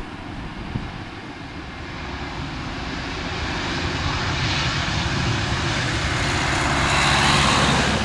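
Airbus A320neo's twin turbofan engines running as the airliner rolls out along the runway after landing: a steady jet noise that grows louder as it comes closer, loudest about seven seconds in.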